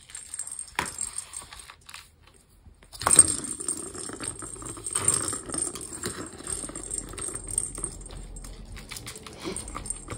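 Plastic circular cat track toy clattering and rattling as a kitten bats at it and its spring-mounted feather wand, with a sharp knock about three seconds in and busy clattering after it.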